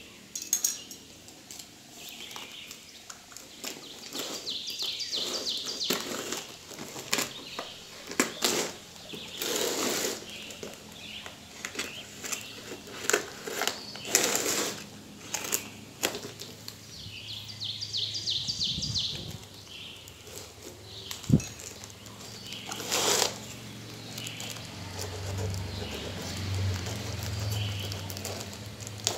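Packing tape and plastic wrap on cardboard boxes being cut open with scissors and a knife: crinkling, tearing and snipping in irregular spells, with sharp clicks and short pauses between.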